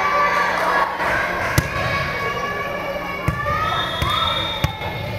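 A volleyball smacking on a hardwood gym floor and against hands, four sharp hits a second or more apart, over steady chatter of players echoing in the gymnasium.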